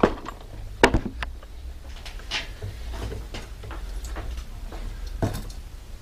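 Tools and small metal parts being handled on a workbench: scattered knocks and clatter, the loudest about a second in and another just after five seconds.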